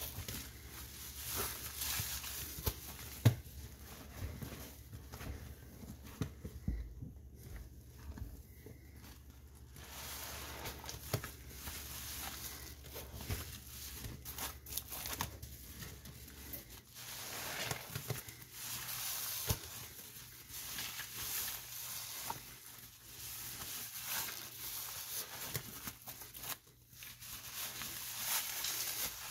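Soapy sponge being squeezed and worked by hand: irregular wet crackles and clicks of the suds, with a quieter spell about seven seconds in.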